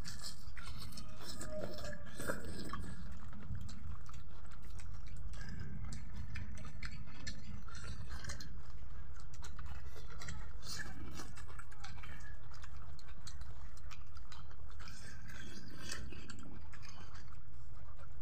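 Several people eating rice and beef curry with their hands: chewing and mouth sounds with scattered small clicks, over a steady low hum.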